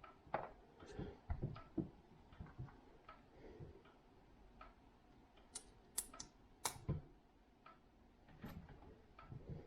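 LEGO pieces being handled and pressed together: irregular small plastic clicks and knocks, with a few sharper snaps about six and seven seconds in.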